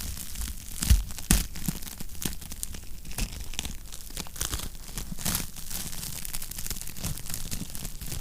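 Wood fire crackling in a fireplace: a dense run of irregular pops and snaps over a steady hiss, with two louder pops about a second in.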